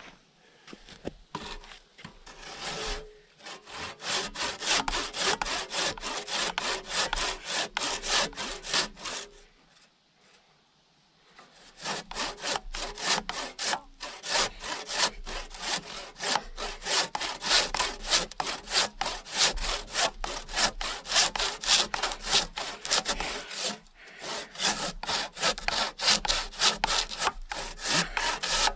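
Handsaw ripping lengthwise through a log in steady back-and-forth strokes. The sawing stops about ten seconds in and starts again a second or two later.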